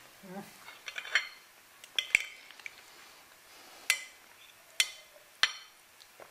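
Knives and forks clinking and scraping on ceramic dinner plates as two people eat: about half a dozen sharp clinks at uneven intervals.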